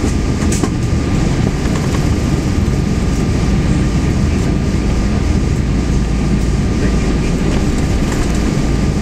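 Cabin noise of a Boeing 777-200ER taxiing: a steady low rumble from the engines and the wheels rolling on the taxiway, with a steady thin whine above it.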